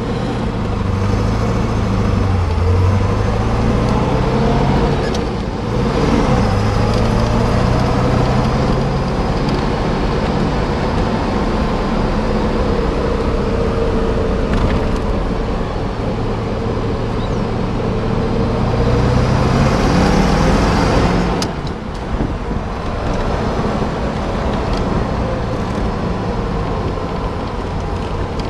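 1964 Corvette roadster's 327 V8 running under way, heard from the driver's seat with road noise. The engine pitch dips about five seconds in, climbs and then drops sharply about twenty-one seconds in.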